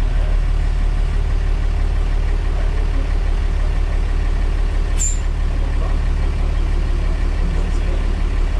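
Mercedes-Benz OF-1315 bus's diesel engine idling steadily with a deep low rumble, heard from inside the cab beside the engine housing while the bus stands still. A brief sharp high sound cuts in about five seconds in.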